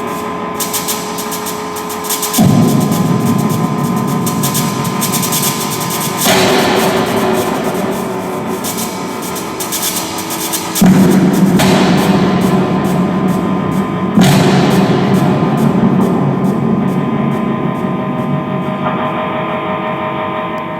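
Live drone music: dense sustained layered tones, hit by four loud sudden swells a few seconds apart, each slowly fading away.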